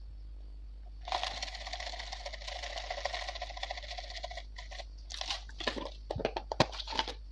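Crispy fried onion pieces rattling in a plastic jar as it is shaken over a pot, a fast continuous rattle for about three seconds, then several separate clicks and taps from the jar.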